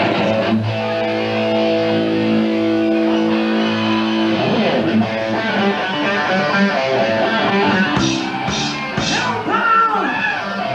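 A live rock band's electric guitar opens a song: a held, distorted chord rings for about four seconds, then the guitar moves into riffing. Near the end a few short, sharp sounds come in over the guitar.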